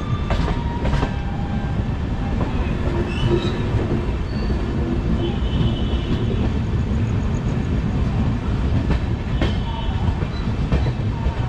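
Passenger train running, heard from an open coach door: a steady low rumble of wheels on the rails. Sharp clacks come as the wheels cross the track, a couple at the start and two more near the end. A thin high tone rings for a few seconds in the middle.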